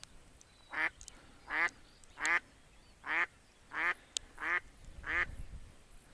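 Live decoy hen duck quacking a run of seven short, loud quacks, a little under a second apart. This is the hen's calling series that draws drakes in.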